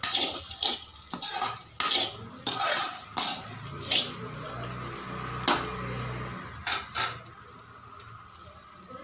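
Metal spoon scraping and clinking against an aluminium kadai as flattened rice (poha) is stirred, quick and busy at first, then a few separate clinks. A cricket's steady high trill goes on underneath.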